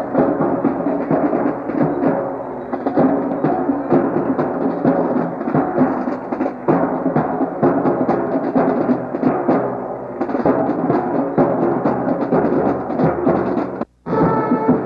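Marching brass band playing a march, with drums beating steadily under the horns; the sound drops out for a moment about a second before the end.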